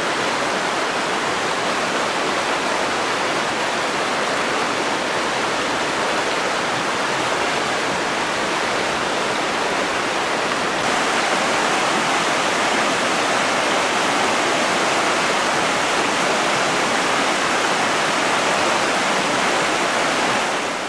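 Mountain stream rushing steadily, an even hiss of running water that gets slightly louder about halfway through.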